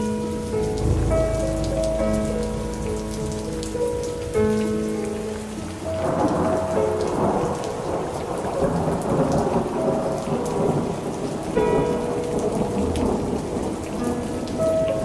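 Steady rain with thunder: a deep rumble about a second in, then a louder rush of rain and rolling thunder from about six seconds in. Soft, held instrumental notes sound under the rain at the start and again near the end.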